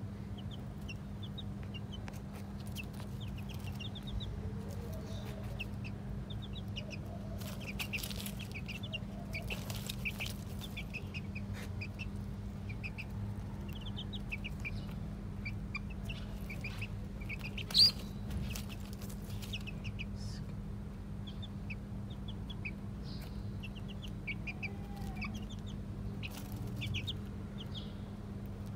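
Young chickens peeping in quick runs of short, high chirps, over a steady low hum. A single sharp click a little past halfway is the loudest sound.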